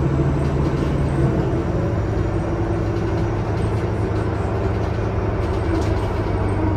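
Inside a 2016 NovaBus LFS CNG transit bus under way, its Cummins ISL-G 8.9 L six-cylinder natural-gas engine running steadily. The engine note drops about a second in, then slowly rises.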